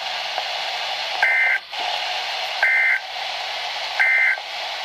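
Emergency Alert System end-of-message signal on NOAA Weather Radio: three short, buzzy two-tone data blips about a second and a half apart, over steady radio hiss.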